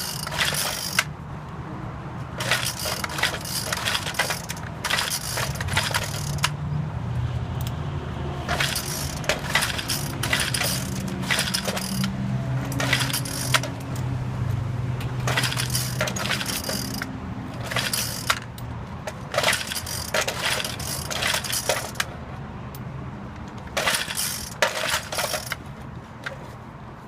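Troy-Bilt TB575EC four-stroke string trimmer being pull-started again and again: a string of short recoil-starter pulls, about one every second or two, with the freshly tuned engine not yet catching.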